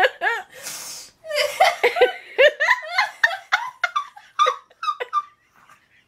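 A woman laughing hard in rapid high-pitched bursts, with a gasping inhale about half a second in; the laughter dies away near the end.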